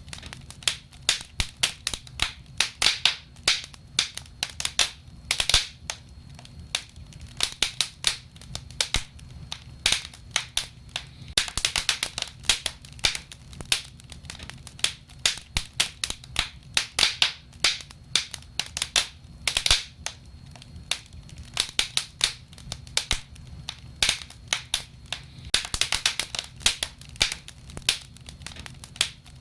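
Wood fire crackling and snapping as logs burn in a fireplace: a steady stream of sharp pops, several a second, with louder clusters every few seconds, over a faint low hum.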